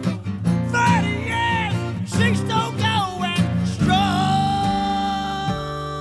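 Country song with guitar accompaniment and a sung vocal, ending in one long held note about four seconds in.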